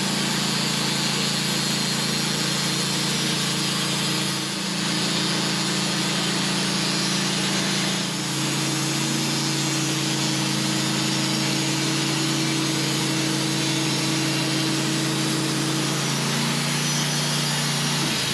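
Portable sawmill running steadily as it saws a large white pine log: an engine drone under a dense whine of the blade in the wood. The engine note shifts about eight seconds in.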